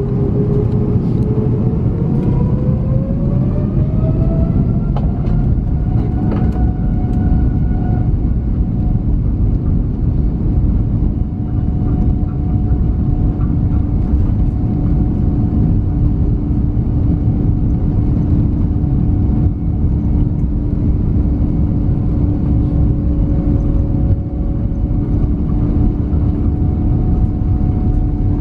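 Airbus A330neo's Rolls-Royce Trent 7000 turbofans heard from inside the cabin, spooling up with a rising whine over the first few seconds, then running steadily at take-off thrust: a loud, even rumble with a steady hum through the take-off roll.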